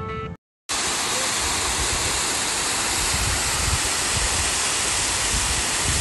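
Water cascading over a stepped concrete weir, a steady rush that starts abruptly just under a second in, after a brief snatch of music and a moment of silence.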